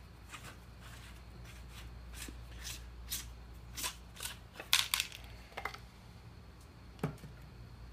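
Plastic parts of an Irrigreen sprinkler head being twisted and pulled apart by hand: rubbing and scraping of plastic with scattered sharp clicks, loudest in a quick cluster about five seconds in and once more near the end.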